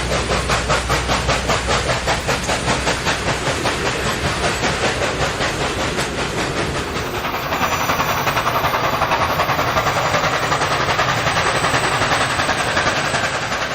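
Small steam locomotive chuffing in an even rhythm of about three or four beats a second with steam hiss; about halfway through the beats come faster and closer together.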